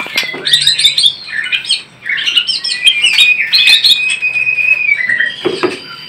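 White-rumped shama (murai batu) singing: a fast run of varied chirps and whistled phrases, with one long held whistle note about three seconds in. A couple of sharp knocks are heard near the start and near the end.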